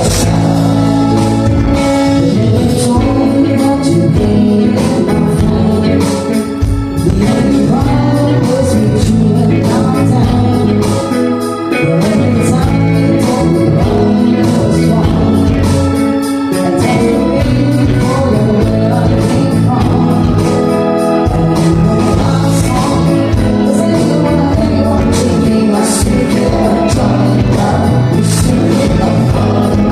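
Live band playing a song, with a singing voice over the instruments.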